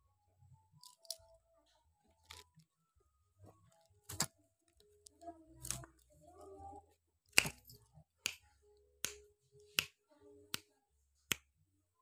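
A series of sharp clicks, a few scattered ones at first, then six in a steady run about three-quarters of a second apart in the second half, with faint soft sounds between them.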